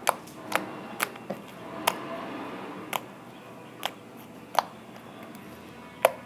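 Homemade glue-and-detergent slime being poked and squeezed by hand, giving about eight sharp, irregular clicking pops a half-second to a second apart.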